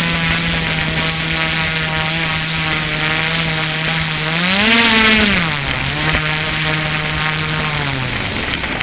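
Electric motor and propeller of a Flyzone Seawind RC seaplane humming at low throttle. About halfway in the pitch rises and falls back with a throttle blip. Near the end it winds down and stops as the plane settles onto the grass.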